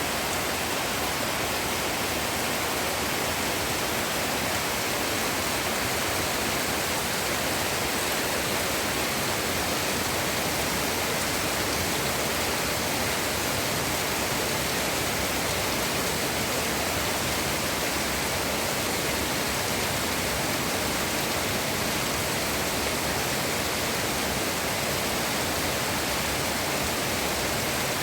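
A steady, even rush of water, with no break or change.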